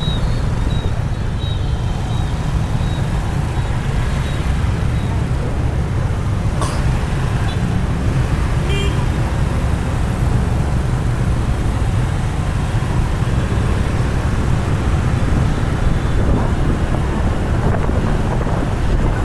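Road traffic in a jam: a steady low rumble of engines and road noise, with a brief click about seven seconds in.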